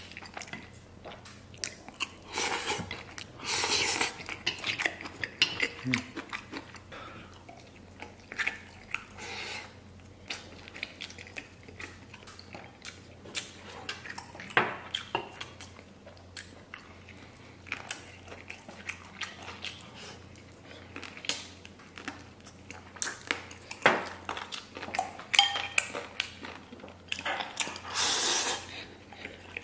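Close-up eating of braised noodles: wet chewing and chopsticks clicking against a ceramic bowl, with two long, loud slurps of noodles, about three seconds in and again near the end.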